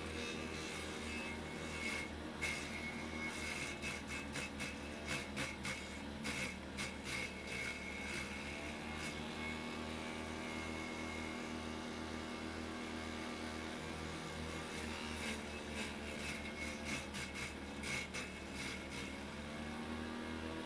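Vegetable chopper driven by an electric water-pump motor with a grass-cutter blade, humming steadily. Two spells of rapid clattering come as vegetables are fed in and cut, and the motor's pitch sags a little under the load before recovering.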